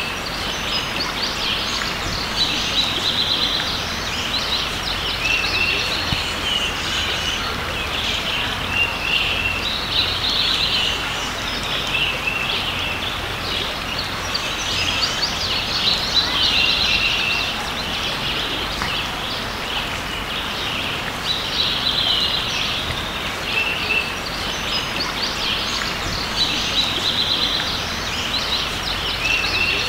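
Steady rush of a creek's flowing water, with songbirds singing short phrases over it every few seconds.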